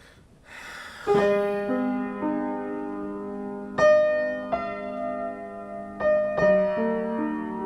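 Instrumental piano intro: slow, held chords, a new chord struck about every two and a half seconds, with a few single notes in between. It is preceded by a soft rushing swell in the first second.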